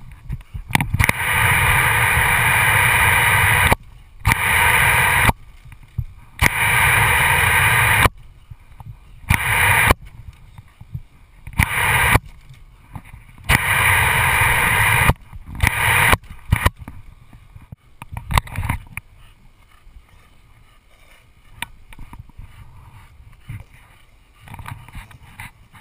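Garden hose spraying in about seven bursts of one to two and a half seconds, each starting and stopping abruptly, with water spattering on a wooden deck. After that it goes quieter, with scattered small clicks and scuffs.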